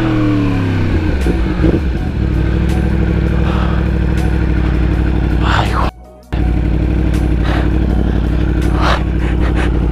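2018 Yamaha R1's crossplane inline-four engine on the move: revs falling over the first second and a half, then holding steady at cruising speed over wind noise. The sound drops out briefly about six seconds in.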